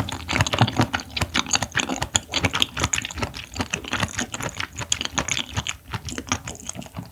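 Close-up chewing of raw clam meat: a fast run of sharp wet clicks, several a second.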